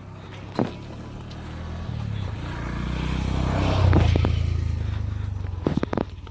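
A motor vehicle passing close by on a dirt track, its engine growing louder to a peak about four seconds in and then fading away. A sharp knock comes early and a few more near the end.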